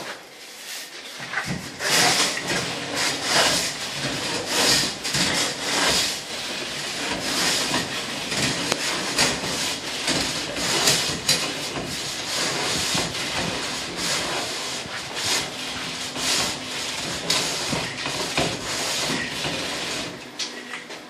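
A long metal straightedge scraped again and again across fresh, rough cement render on a wall, levelling it off. It makes a run of irregular rough scraping strokes.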